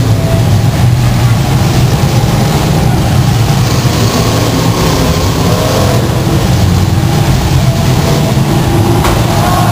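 Demolition derby cars' engines running and revving together, a loud, steady din.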